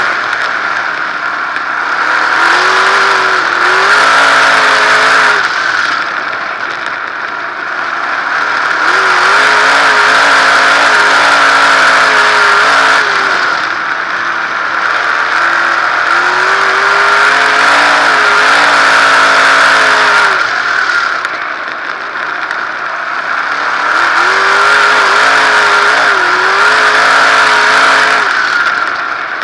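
360 sprint car's V8 engine at racing speed, heard from on board, rising in pitch and loudness under throttle and dropping back as the throttle lifts, in repeating cycles about every seven to eight seconds.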